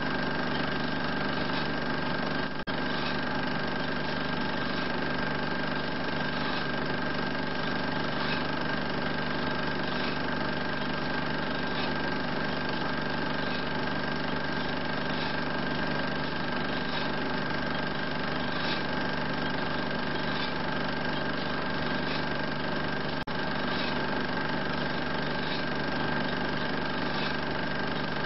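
A 16 mm film projector running, a steady mechanical hum with faint recurring ticks, dipping briefly twice.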